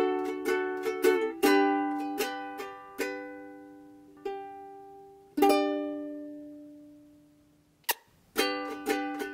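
Background music on a plucked string instrument: strummed chords and picked notes that ring and die away. A long chord about five seconds in fades out over two seconds, then a sharp click comes just before quick strumming resumes near the end.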